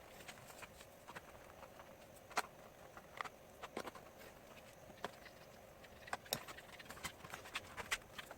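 Irregular small clicks and taps of plastic and metal laptop parts and tools being handled, about one or two a second, more frequent near the end.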